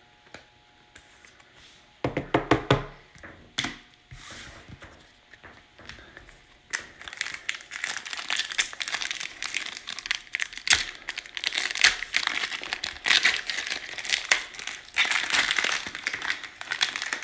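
Foil wrapper of a Panini Prizm basketball card pack being torn open and crinkled, then the clear plastic inner wrapper rustling as the cards are slid out. There is a brief handling noise about two seconds in, and steady crinkling from about seven seconds on.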